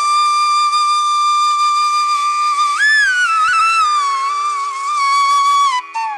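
Background music: a flute holds one long note, bends up briefly about three seconds in, then slides slowly back down, over a steady low drone.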